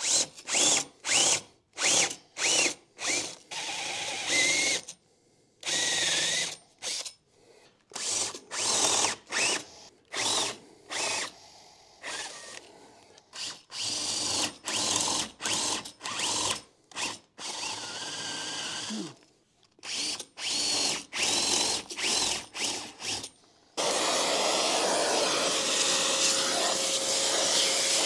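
Cordless drill boring 7/16-inch holes into hardwood stair treads in many short trigger bursts, the motor whining up with each pull. About 24 seconds in, a vacuum starts and runs steadily, sucking up the wood chips.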